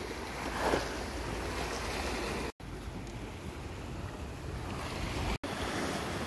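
Sea waves washing and breaking against a rocky shore, a steady rushing with wind buffeting the microphone. The sound cuts out briefly twice.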